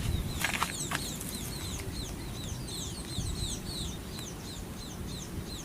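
Small birds chirping over and over: short, quick, falling chirps, several a second, over a steady low rumble, with a few clicks in the first second.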